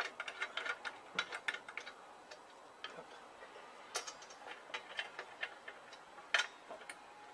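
Irregular small metallic clicks and ticks as a saree guard's bracket and mounting bolt are worked into place by hand on a motorcycle's rear frame. Two sharper clicks come about four seconds in and again near the end.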